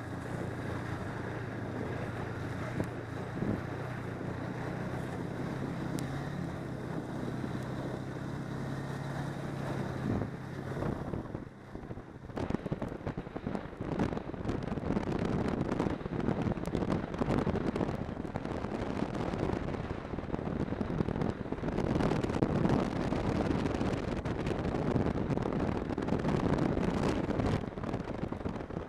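Snowmobile engine running steadily while riding along a trail, with wind buffeting the microphone. About eleven seconds in the steady engine hum gives way to a louder, rougher rushing noise with crackling wind buffets.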